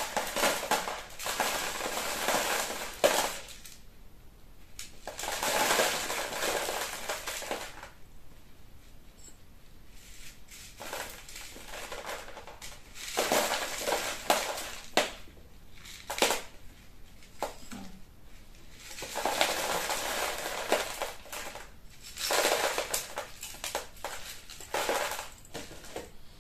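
Granular Lechuza PON mineral substrate crunching and rattling as a plant's root ball is worked loose from its pot and the grains fall into a bowl. It comes in about six spells of a few seconds each, with quieter pauses between.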